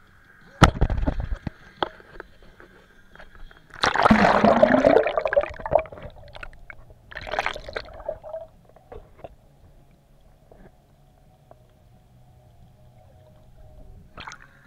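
Water splashing and gurgling around an action camera as it is plunged beneath the surface. A sharp knock comes about half a second in, loud sloshing rushes follow around four seconds and seven seconds in, then a faint steady hum while the camera is under water.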